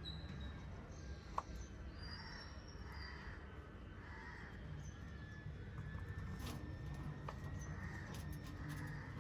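Pet birds chirping faintly and intermittently over a low steady background rumble, with one sharp click about a second and a half in.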